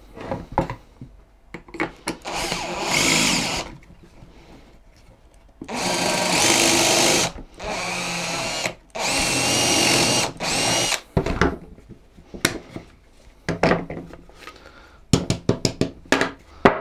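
Makita cordless drill boring a pocket hole with a stepped bit through the guide of a Wolfcraft Undercover Jig, in four bursts of a second or two each. The motor pitch holds steady within each burst. Then comes a run of sharp clicks and knocks as the jig and board are handled.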